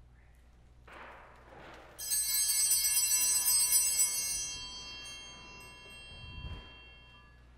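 A small bell struck once, ringing bright and high, then slowly fading away. A soft low thump near the end.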